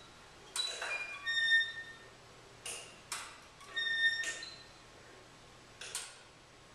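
A few sharp clicks spread out over several seconds, each followed by short high squeaky tones that last about half a second.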